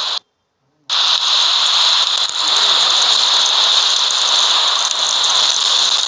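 Steady high hiss of a snowstorm on an outdoor microphone, with no tones or rhythm. It breaks off into dead silence for under a second near the start, then resumes unchanged.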